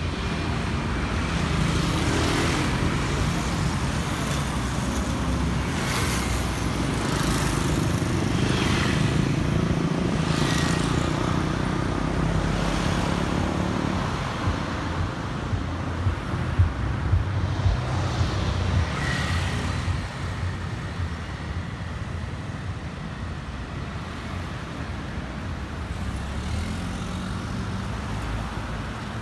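City street traffic: vehicle engines running close by, with several vehicles going past. The low engine noise eases about halfway through, and a few sharp knocks come a little after that.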